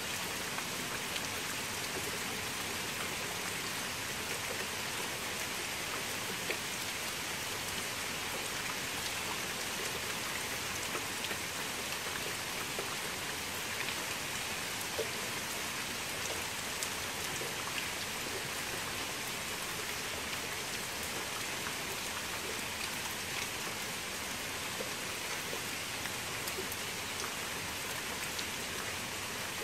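Steady rain falling on a shallow puddle of standing water: a dense, even hiss with many small drop splashes scattered through it.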